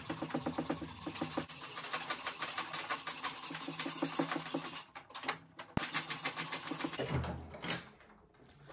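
Fast back-and-forth scrubbing of a rust-spotted metal cymbal-stand boom arm tube with aluminium, about six strokes a second, pausing briefly partway and stopping near the end, followed by a short sharp metallic clink.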